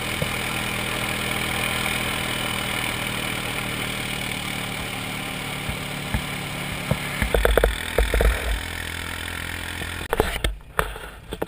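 Quad bike (ATV) engine running steadily as it tows a trailer along a gravel road, with tyre and gravel noise. A few heavy low thumps come about seven to eight seconds in. Near the end the engine sound drops away suddenly, leaving scattered quieter knocks.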